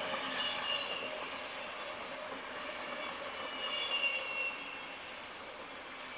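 Passenger coaches of a train hauled by an SBB Re 460 rolling past at speed on the rails: a steady rushing rumble of wheels on track with faint high whining tones that slide slowly downward. It eases a little in the last couple of seconds as the train draws away.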